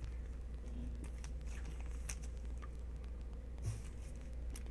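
Faint, scattered light taps and ticks of trading cards being handled and laid down on a card mat, over a steady low hum.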